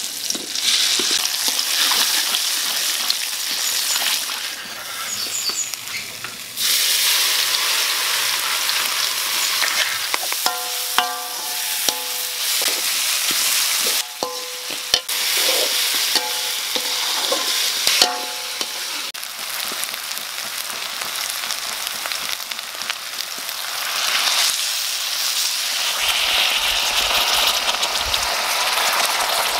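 Spice paste sizzling as it is stir-fried in an aluminium wok, the metal spatula scraping the pan, with a few short squeaks in the middle. Near the end, water is poured into the hot wok over the pork.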